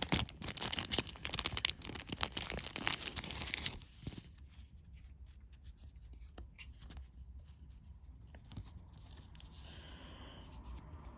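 Thin plastic card sleeve crinkling and rustling as a trading card is handled and slid into it, busy for about four seconds, then only a few faint handling ticks.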